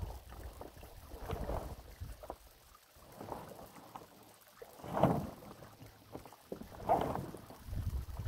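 Large black plastic liner rustling and crinkling in irregular swells as the sheet is dragged and shifts, with the loudest swells about five and seven seconds in, over a low wind rumble on the microphone.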